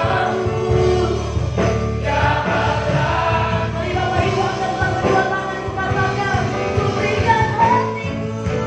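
Worship song: a group of voices singing together over instrumental accompaniment with a steady bass line.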